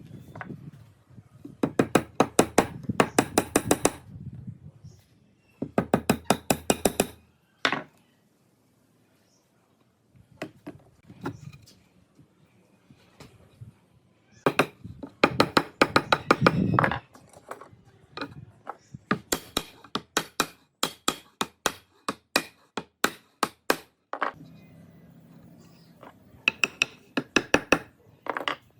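Rapid sharp knocks on wood, coming in several bursts of quick strikes with pauses between, typical of hammering during a woodworking build.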